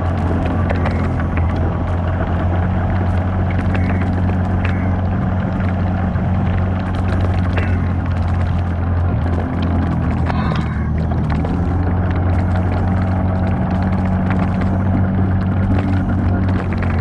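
Off-road 4x4 engine running at a steady, low speed, with scattered clicks and knocks from the vehicle working over the trail.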